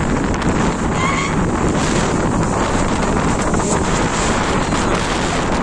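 Steady wind buffeting the microphone, over choppy floodwater lapping at the edge of an overflowing lake.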